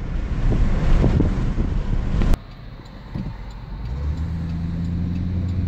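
GMC pickup truck driving: rushing wind and road noise with a low rumble, cut off abruptly about two seconds in. A quieter, steady engine hum then holds one pitch for the rest of the stretch.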